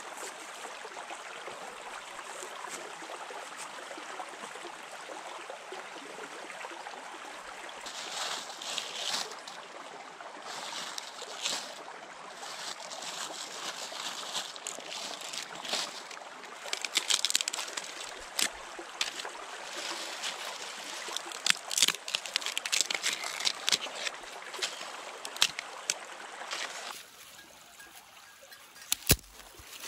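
Shallow stream running steadily over stones, with sharp, irregular snaps and clicks over it from about eight seconds in. Near the end the water sound drops away much quieter.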